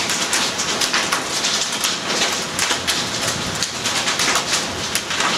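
Steady rain falling, with many close drops striking sharply at irregular moments.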